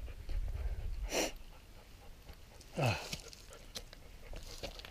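A hiker breathing hard while clambering up rock: a sharp exhale about a second in, then a short grunt that falls in pitch near the three-second mark, with a few light taps and some wind rumble on the microphone.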